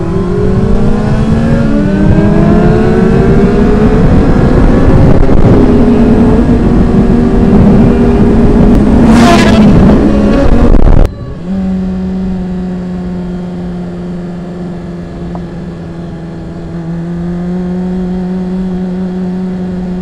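Sportbike engine pulling hard through the gears, its note climbing with heavy wind rush on a helmet-mounted camera. About eleven seconds in the sound cuts suddenly to a quieter, steady cruising engine note.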